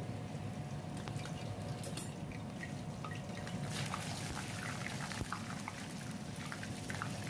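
A poori deep-frying in hot oil in a kadai: a steady sizzle with many small scattered pops and crackles.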